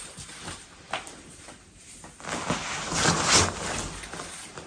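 Rustling of fabric and a shopping bag as a dress is handled and pulled out, with a soft click about a second in and the rustling loudest for a couple of seconds past the middle.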